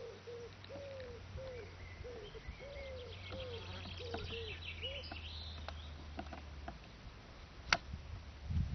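Outdoor birdsong: one bird gives a run of about ten short, low, arched calls, while smaller birds chirp higher up. A low steady hum runs underneath, and a single sharp click comes near the end.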